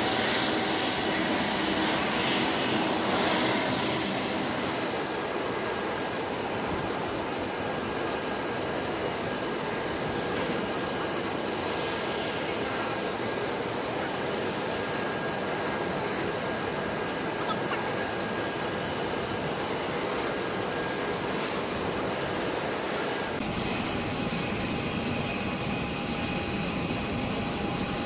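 Jet airliner engines running on an airport runway: a steady noise with a thin high whine, a little louder for the first few seconds. The sound changes abruptly about 23 seconds in.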